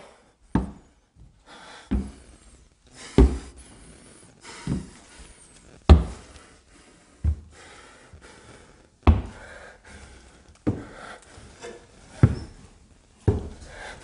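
Slow, heavy footsteps on wooden stair treads, about ten thuds spaced roughly one and a half seconds apart.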